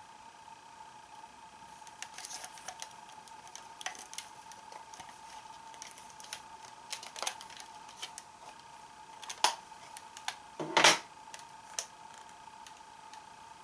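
Plastic clicks and clacks from a Kamen Rider Ryuki toy belt and its cards being handled, scattered and irregular, with a louder clack just before the end. A faint steady hum runs underneath.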